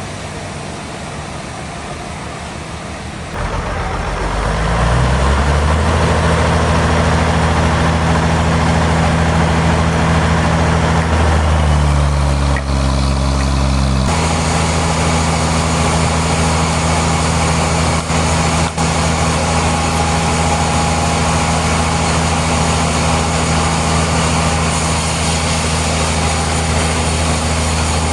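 Heavy machinery starting up about three seconds in, rising in pitch and then running steadily with a low hum; the pitch shifts briefly near the middle.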